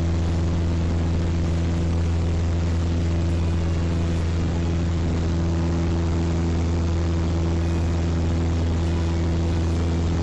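Cessna 152's four-cylinder Lycoming engine and propeller running steadily in level flight: an even, low drone with a few overtones that does not change, heard inside the cockpit.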